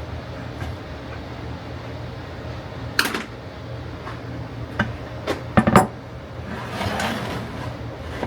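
Workshop handling noise: several sharp knocks and clatter, with a short scraping rustle just after, over a steady low hum.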